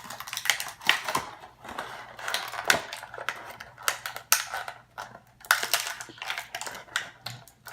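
Plastic packaging crinkling and crackling as it is handled and pulled apart to free a doll, a string of irregular crackles and clicks.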